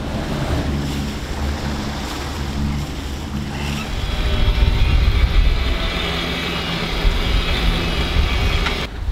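Wind and sea noise aboard a sailing catamaran under way, with wind buffeting the microphone. A low steady hum sits under it at first, and the wash of wind and water grows louder about four seconds in.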